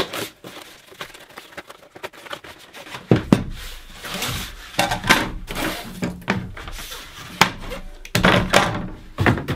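Track-saw guide rails and their joining bar being handled, with a string of knocks and thunks as they are moved about.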